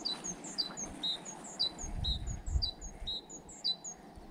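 A small songbird calling over and over in short, high, falling chirps, two or three a second, which stop shortly before the end. A low rumble with a few dull thuds lies underneath.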